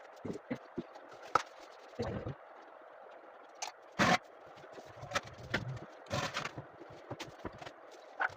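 Irregular knocks, clicks and scrapes of hands working on a toilet and its connector pipework, with one loud knock about four seconds in and a short scraping stretch near six seconds.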